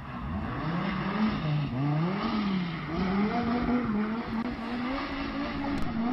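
A car engine revving up and down over and over while its tyres squeal, as a car spins donuts.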